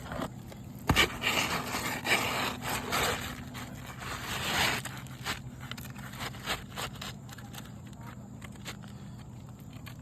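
Scraping and rustling of a removed asphalt roof shingle being handled, heaviest for the first few seconds and then thinning to scattered clicks and ticks.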